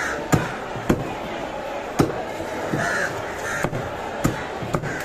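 Large knife chopping cobia into chunks on a wooden block, about six sharp knocks at uneven intervals. Crows cawing in the background.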